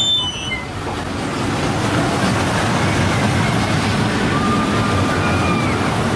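Small roller coaster car running along its steel track: a steady, loud rumble of wheels on rails. A brief high squeal sounds right at the start.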